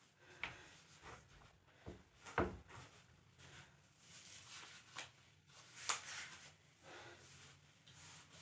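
Faint rustling with a few soft knocks, the loudest about two and a half seconds in, from a person shifting on a floor mat and handling clothing close to the phone.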